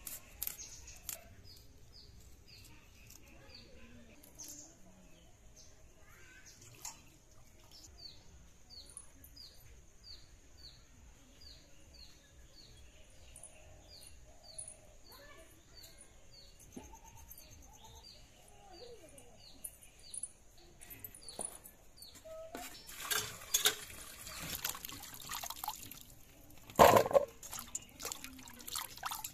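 Hands swishing and splashing chopped green papaya in a steel bowl of water, loudest in the last few seconds. Before that it is quiet, with a short high chirp repeating about twice a second over a steady high hiss.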